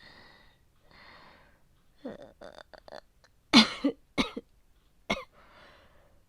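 A woman breathes out heavily twice, then gives a run of short, catching throat sounds and three hard coughs, followed by another breath. The coughing is acted as a feverish, nauseous illness.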